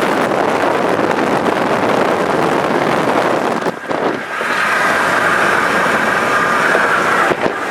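Loud rushing wind and road noise inside a car driving fast on the highway, with a brief dip a little before halfway. A steady high whistling tone joins in the second half and stops shortly before the end.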